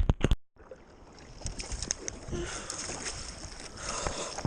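A few loud knocks right at the start, then after a brief dropout a steady rush of water with many small splashes and clicks around a kayak in the surf.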